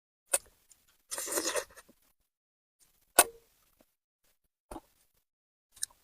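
Close-miked eating of spicy braised fish: a few sharp, separate clicks and one short noisy burst a little over a second in.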